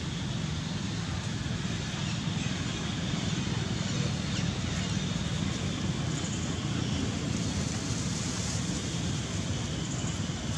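Steady outdoor background noise: a low rumble with a fainter hiss above it and no distinct calls or knocks.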